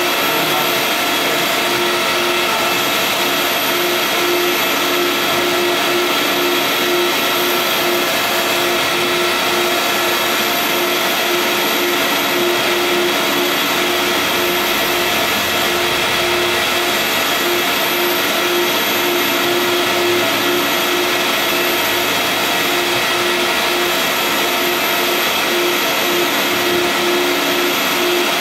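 Vutek UV-curable wide-format printer running as it prints on a rigid sign board: a loud, steady machine whir with a tone that pulses on and off at an even rate.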